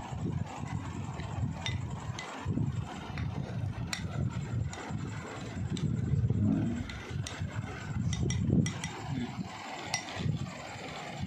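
Plastic spoon stirring wet yoghurt chaat in a glass bowl, with a dozen or so sharp clicks of the spoon striking the glass, over a constant low rumble.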